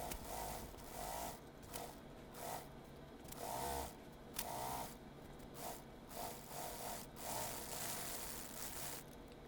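Sewing machine running in short spurts with pauses between, a stop-and-go stitching pattern, as when topstitching along a bag's zipper seam.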